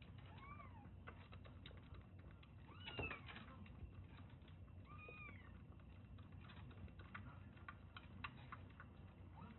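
A white kitten suckling milk from a feeding bottle: a run of faint, quick wet clicks from its sucking, with three short mews that rise and fall in pitch, about half a second, three seconds and five seconds in, the middle one the loudest.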